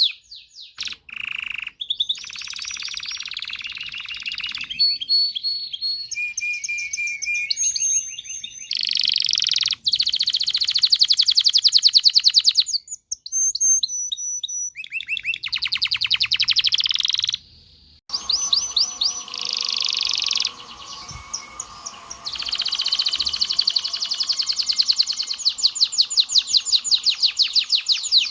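Domestic canary singing a long, varied song of very rapid trills and repeated-note phrases that change every second or two, with a few short breaks between phrases.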